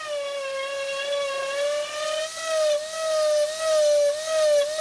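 Electric power tool motor running with a steady high whine that wavers slightly in pitch as it works, then cuts off suddenly at the end.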